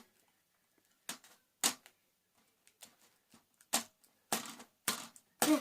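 Freshly made borax-and-glue slime being squeezed and kneaded by hand, giving a string of short, irregular sticky squelches and pops.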